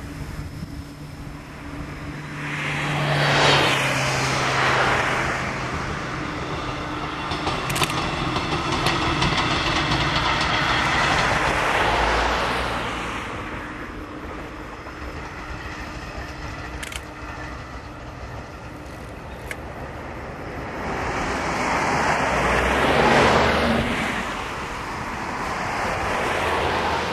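Vehicles passing by, three times rising and fading away. The longest pass in the middle has a few sharp clicks and fits a passing train.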